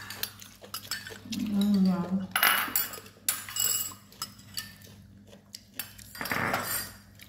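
Metal spoons clinking against ceramic bowls as dishes are handled at a meal table, a scatter of light clicks and knocks throughout. A short voice-like hum comes about a second and a half in.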